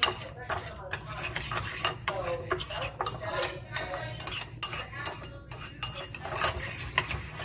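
Spoon stirring homemade barbecue sauce in a bowl, with repeated clinks and scrapes of the spoon against the bowl.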